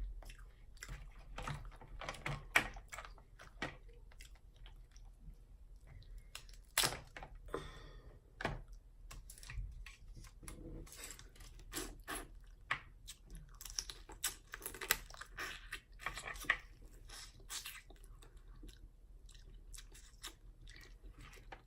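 Close-miked eating of seafood boil: wet chewing and smacking, with scattered sharp clicks and crunches at irregular intervals.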